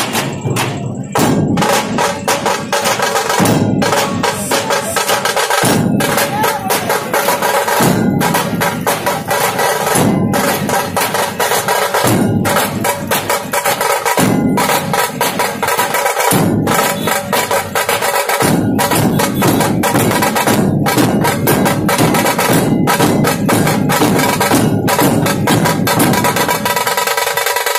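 Loud drumming: many sharp drum strokes in a fast, steady rhythm, with a deeper drum sounding in stretches of about two seconds and dropping out in between.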